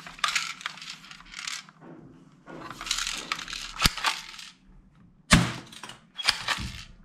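Plastic toy guns clattering and rattling in a cardboard box as a plastic toy shotgun is handled and lowered among them, with several sharp clacks in the second half.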